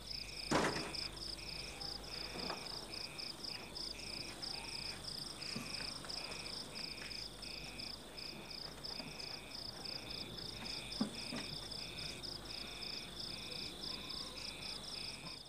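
Crickets chirping in an even, rapid pulse, a steady night ambience, with a few faint knocks, the loudest about half a second in.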